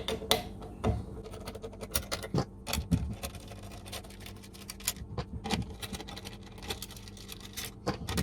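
Metal mounting brackets being unscrewed and taken off a car radio head unit: irregular small clicks, taps and scrapes of metal parts and screws being handled.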